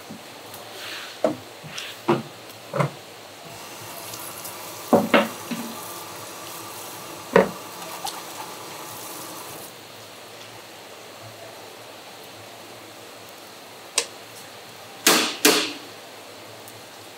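Seafood-counter work sounds: scattered sharp knocks and taps, two of them loud near the end, with water running for about six seconds in the middle.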